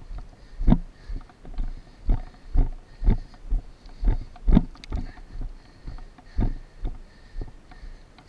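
Dull, evenly spaced thumps about twice a second, with a faint steady hiss behind them.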